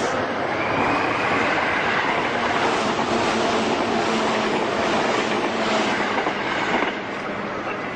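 Electric commuter train running alongside the platform: a steady rush of wheel and air noise with a faint motor whine, dropping away about seven seconds in.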